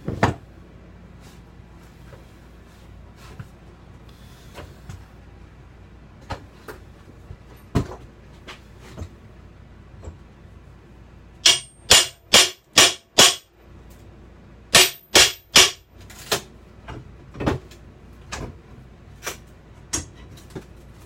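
Two quick runs of loud, sharp knocks, five and then four, about three a second. Lighter knocks and clatter fall here and there, over the steady hum of an old air conditioner.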